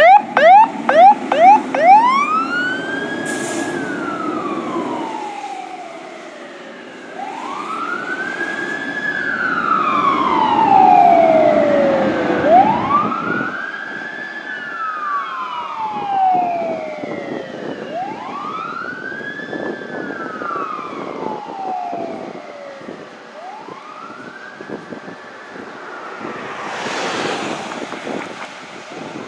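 Fire engine's siren: a rapid yelp for about two seconds, then a slow wail that rises, holds and falls about every five seconds, with the truck's diesel engine under it in the first few seconds. The siren grows fainter as the engine pulls away.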